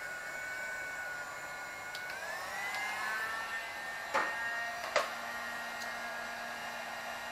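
Chicago Electric heat gun running with a steady fan whine that rises in pitch about two seconds in, with two sharp knocks about a second apart as the running gun is set down on the floor.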